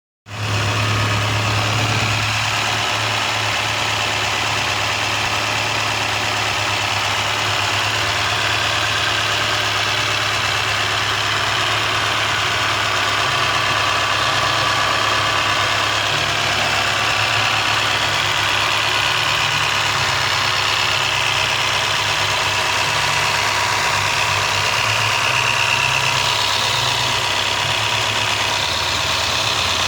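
2001 Toyota Corolla's 7A-FE four-cylinder engine idling steadily, with a light noise that the owner suspects is valves tapping or the timing chain.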